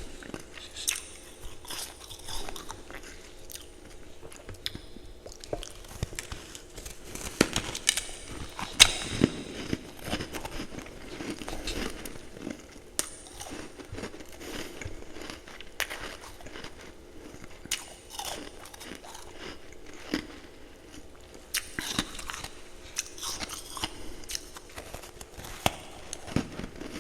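A person biting into and chewing ice, with sharp crunches at irregular intervals and crackly chewing between them.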